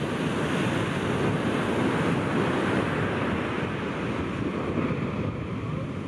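Shorebreak surf breaking and washing up the beach, a steady hiss of whitewater that eases off near the end, with wind rumbling on the microphone.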